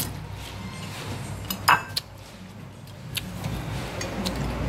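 Spoons and dishes clinking on ceramic plates at a meal table, a few scattered clinks with one sharp, louder clink about a second and a half in, over a steady low rumble.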